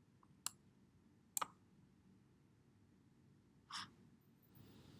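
Near silence broken by two short, sharp clicks about a second apart, and a brief breath near the end.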